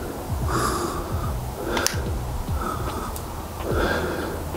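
Background music with a steady beat, with one sharp click about two seconds in.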